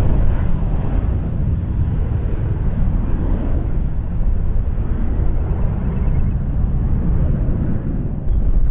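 Jet airliner departing, its engines making a loud, steady low-pitched noise with no clear tone. The noise shifts abruptly near the end.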